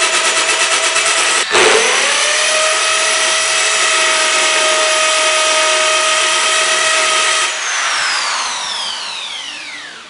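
Electric power drill running with its bit grinding into a smartphone's screen: a steady high whine, pulsing fast for the first second or so. Near the end the trigger is let go and the motor winds down, its whine falling in pitch and fading away.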